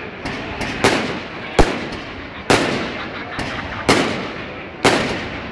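Fireworks going off: a string of about seven sharp bangs, roughly one a second, each trailing off in a rolling echo.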